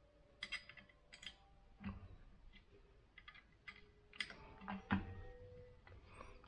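Faint metal clicks and ticks of a small hex key turning the mounting screws of a laser clamped to an AR-15's aluminum handguard rail, with two duller knocks, the louder about five seconds in.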